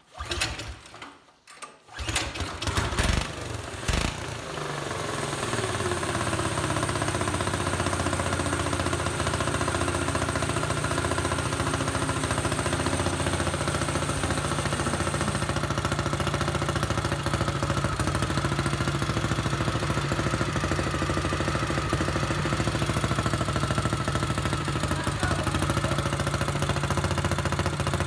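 A quarter midget race car's small single-cylinder four-stroke engine is fired up for the first time after installation. It catches about two seconds in, revs unevenly for a couple of seconds, then settles into steady running.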